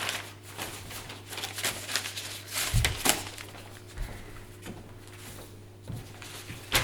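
Rustling and clicking of objects being handled, with a couple of soft thumps about three seconds in and a sharp click near the end, over a steady low hum.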